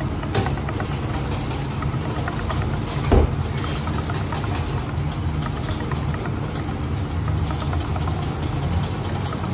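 Steady low drone of a commercial kitchen's extraction hood and machinery, with light clicks of a whisk against a metal bowl and a single louder knock about three seconds in.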